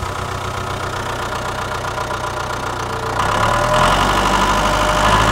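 Ride-on toy tractor driving over a dirt track: a steady engine-like running drone that grows louder about three seconds in.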